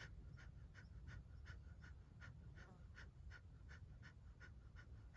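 Kapalbhati breathing: a faint, even series of short, forceful puffs of air out through the nose, about two and a half a second.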